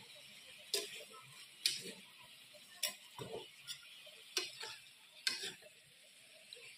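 Metal spatula knocking and scraping against a non-stick wok as sliced eggplant and chicken giblets are stir-fried, in sharp strokes about once a second over a steady faint sizzle. The strokes stop about five and a half seconds in.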